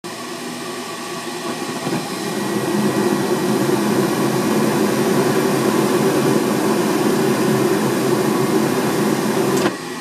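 Gas furnace running under fire, its inducer draft fan and burners making a steady rushing noise that grows louder over the first three seconds. Near the end the noise drops off suddenly as the flame goes out, the pressure switch having opened while the inducer tubing is pinched.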